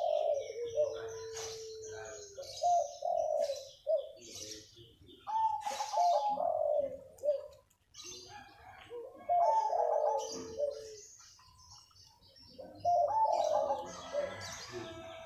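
Zebra dove (perkutut) singing: bouts of rolling, repeated coos, about five phrases with short pauses between them. High chirps of other small birds sound throughout.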